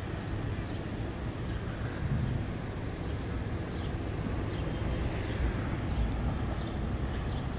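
Steady low rumble of street traffic, with a few faint, short, high peeps from a baby chick.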